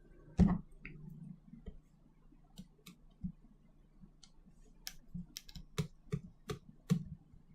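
A soft thud about half a second in, then a scatter of light, sharp clicks that come more thickly in the last few seconds: a small screwdriver and tiny Phillips screws clicking against a smartphone's casing during disassembly.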